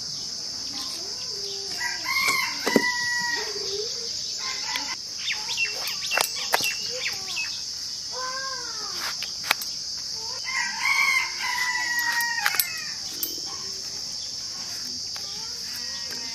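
A rooster crows twice, about two seconds in and again past the middle, with shorter clucking calls between, over a steady insect chorus. A few sharp clicks come from the boti blade cutting through the pumpkin.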